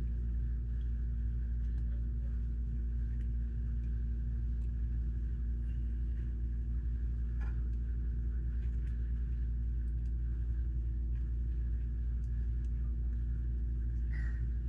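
A steady low hum with a constant pitch, with a few faint scattered clicks over it.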